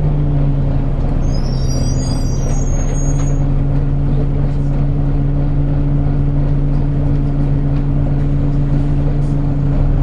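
Volvo B9TL double-decker bus's six-cylinder diesel engine idling steadily while the bus stands still, heard from inside the passenger saloon as a constant low hum. A few brief high chirps come between about one and three and a half seconds in.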